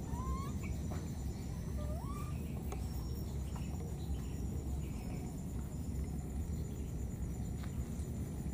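Two short animal calls, each rising quickly and then holding, near the start. Under them is a steady low rumble and a thin, steady high-pitched insect hum.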